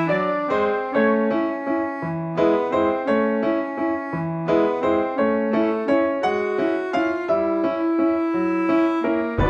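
Background music: a piano melody played note by note at an easy pace.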